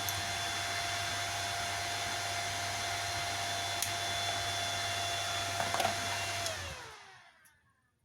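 Welding inverter running with its cooling fan blowing, a steady mains hum and a high whine. About six and a half seconds in it is switched off, and the whine slides down in pitch as the fan winds down to silence.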